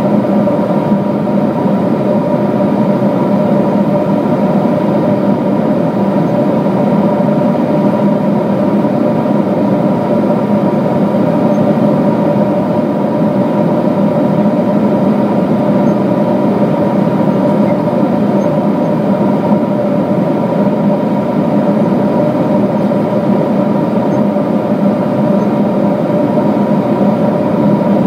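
Steady cabin drone inside a Boeing 777-200 at cruise: engine hum and airflow noise, heard through the cabin at an even level, with a low hum and a couple of fainter higher tones.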